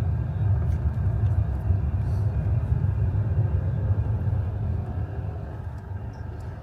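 A car driving along the road: a steady low rumble of road and engine noise that gets quieter about five seconds in.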